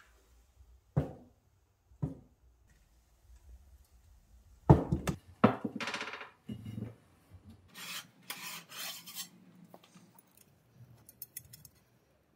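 Hand-operated sheet metal bending brake being worked to bend copper busbar: a few knocks, then a loud clank and rattle of steel about five seconds in as the bending leaf is swung, followed by metal-on-metal scraping. Light clinks of the bent copper bars near the end.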